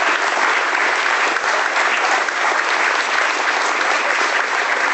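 Audience applauding steadily at the end of a live band's song.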